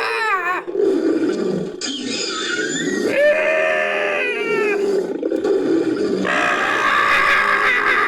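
Layered creature calls: high, hawk-like screeches that fall in pitch, over a continuous low growling roar. The screeches come in several bursts, about a second in, near the middle and near the end.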